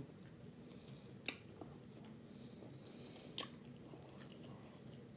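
Faint mouth sounds of a person chewing food, with a couple of sharp clicks about one second and three and a half seconds in.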